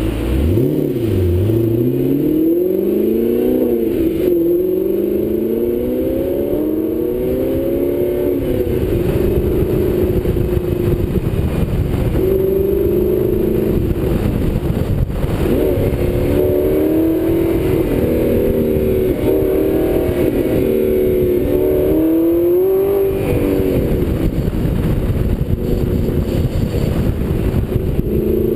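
Audi R8 engine through a Kreissieg aftermarket exhaust, pulling up through the gears. Its note rises and drops back several times in the first eight seconds, then holds a steadier cruise broken by more short rises and falls. A steady low rush of wind and road noise runs underneath.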